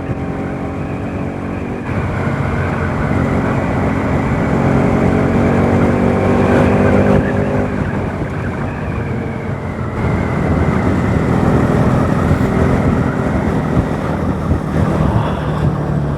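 Bajaj Pulsar NS200 motorcycle's single-cylinder engine pulling hard under throttle, its pitch climbing as the revs rise, easing off briefly past the middle, then pulling up again, with wind rushing over the rider's microphone.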